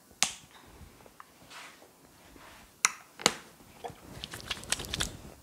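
Sharp clicks and small snaps from hands handling and manipulating a person's wrist during a massage. There is one click near the start, two louder ones about three seconds in, and a quick run of smaller clicks near the end.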